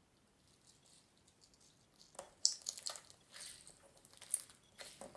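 Clear slime with googly eyes in it being squeezed and stretched by hand: irregular wet squishing and crackling, loudest about two and a half seconds in, with the googly eyes shifting inside making a squirmy noise.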